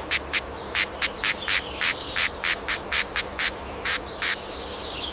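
An animal's short, sharp, high-pitched chirps, repeated about three to four times a second, stopping shortly before the end.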